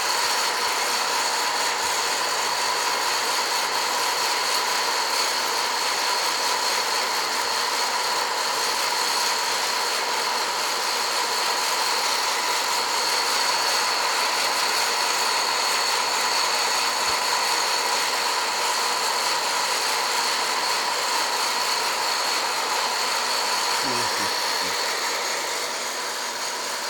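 Hot-air coffee roaster's fan blowing steadily, a constant rush of air with a steady high whine, as the beans roast toward second crack.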